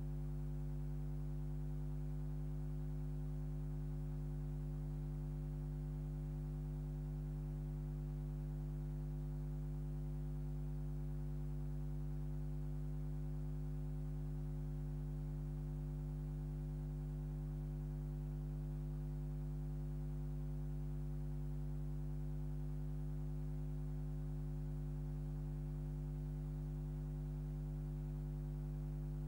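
Steady electrical hum: one low tone with a stack of even overtones, unchanging in pitch and level, with no other sound over it.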